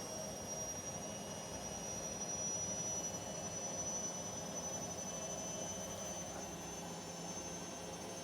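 Bosch front-loading washing machine running with a steady hum, and a thin high motor whine that rises slowly in pitch.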